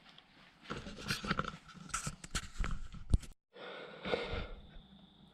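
Scattered clicks and knocks of hands and tools working on a car, with a person's breathing; the sound drops out abruptly for a moment about three seconds in.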